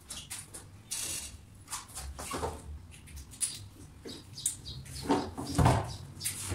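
Short hissing bursts of a trigger spray bottle putting cleaner on a BMX bike, mixed with scrapes and knocks from handling. One louder knock comes a little after five seconds.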